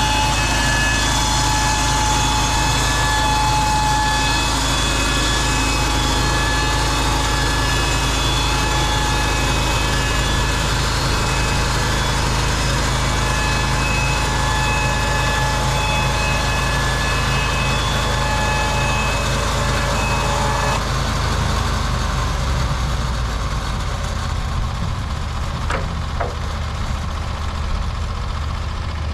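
Norwood LumberPro HD36V2 portable bandsaw mill running steadily, its engine humming under a high, steady whine. About two-thirds of the way through the whine stops and the engine runs on a little quieter.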